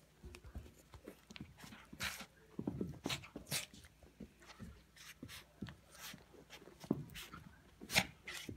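Yorkshire terrier playing tug of war with a plush toy: irregular short bursts of dog breathing and play noises mixed with scuffling, loudest about eight seconds in.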